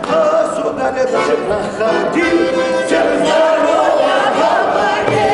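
A mixed folk ensemble of women's and men's voices singing a Don Cossack song in chorus, with an accordion playing along and a few short percussive strokes.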